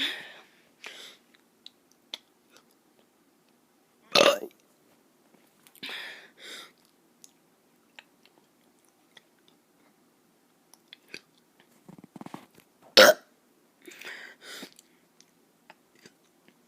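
A child forcing out burps: two short, loud burps about four seconds in and again about thirteen seconds in, with softer gulping and breathing mouth sounds and small clicks between.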